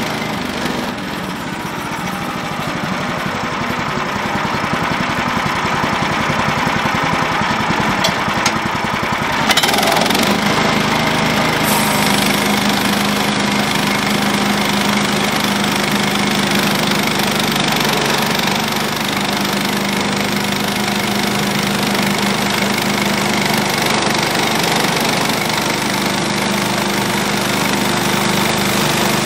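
Small gasoline engine of a Woodland Mills HM130 portable bandsaw sawmill running. About ten seconds in its sound changes sharply and it settles into a steady, faster run that drives the band blade for the first cut into the log.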